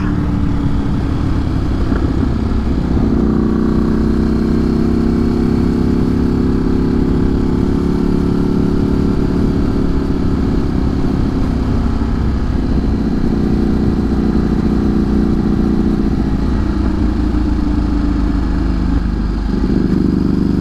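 Ducati Streetfighter motorcycle engine idling steadily, its pitch shifting slightly a few seconds in and again near the end.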